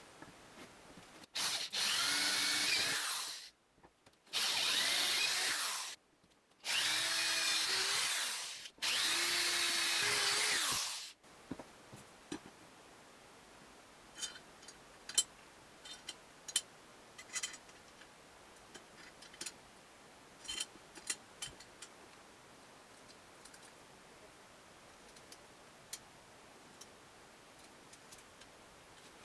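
Electric power tool motor run in four short bursts of about two seconds each, spinning down after each one, followed by scattered light clicks and taps.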